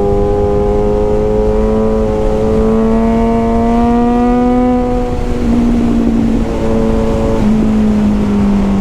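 Motorcycle engine running under load while riding, its pitch rising slowly for about five seconds, then dropping and shifting a few times, with a steady low rumble of wind on the microphone.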